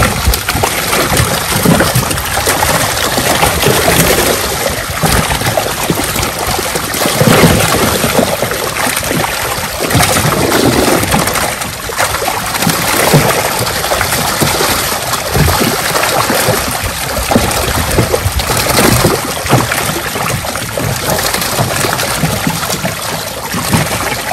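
Continuous, irregular splashing of many fish, red-bellied piranhas among them, thrashing in shallow water crowded inside a net.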